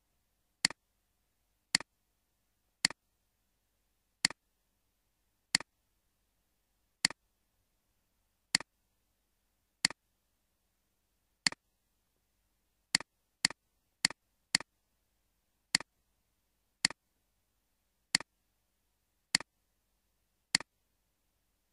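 Computer mouse clicks: about eighteen single sharp clicks at irregular intervals, mostly a second or more apart, with a quicker run of four about two-thirds of the way through.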